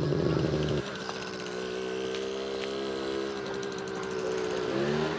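Small engine of a motorized ice-cream tricycle running steadily with a buzzing drone, its pitch rising briefly near the end.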